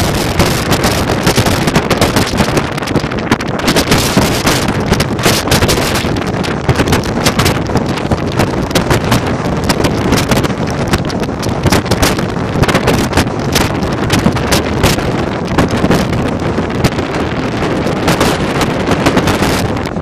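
Strong wind blowing across the microphone: a loud, constant rumble with irregular crackling gusts.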